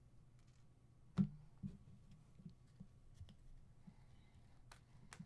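Trading cards and plastic card sleeves being handled and sorted: a sharp tap about a second in, a softer one just after, and a few light clicks near the end, over a faint low hum.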